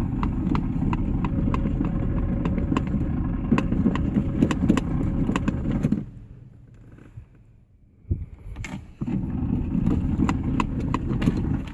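A 1974 Ford Gran Torino's starter solenoid chattering and clicking rapidly, with sharp clicks a few times a second over a buzzing rattle, while the engine does not turn over. The chatter runs for about six seconds, stops, gives one click, then starts again for a couple of seconds near the end. The owner can't tell whether the solenoid or the starter is at fault.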